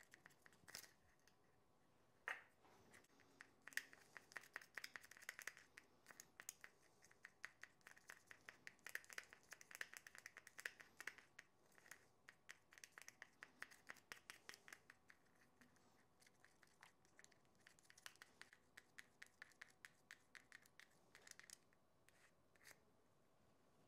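Faint, quick, repeated scraping and ticking of a stick stirring two-part epoxy resin and hardener in a small container.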